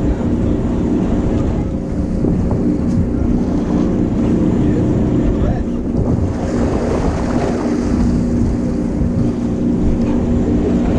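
A boat's engine running steadily, with wind buffeting the microphone and water washing around the hull.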